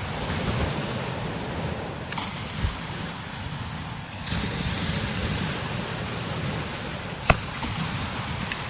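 Strong desert wind blowing in gusts, with a low rumble of wind on the microphone and a high hiss. There is a sharp click about seven seconds in.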